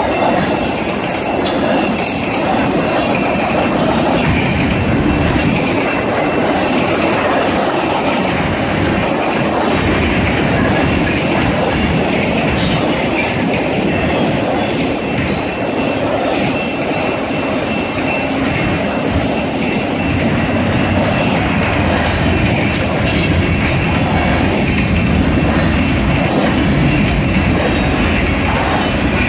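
Canadian Pacific freight train's tank cars and autorack cars rolling past close by: a steady loud rumble of steel wheels on rail, with clicks as wheels cross rail joints and a thin high steady tone over it.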